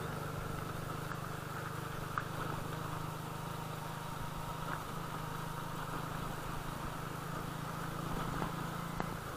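Hero Splendor motorcycle's single-cylinder engine running with a steady low hum and a few faint clicks, stopping abruptly near the end.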